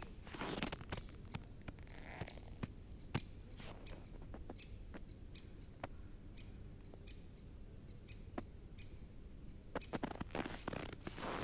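Footsteps in frozen, squeaky snow slowing to a near pause: scattered faint clicks and short high chirps, then steady crunching resumes about ten seconds in.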